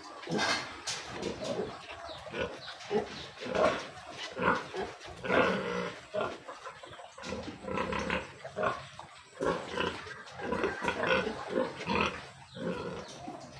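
Pigs grunting in a rapid, irregular series of short calls.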